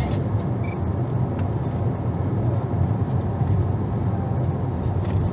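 Car driving along a highway, a steady low rumble of tyres and engine. A brief high pip sounds just under a second in.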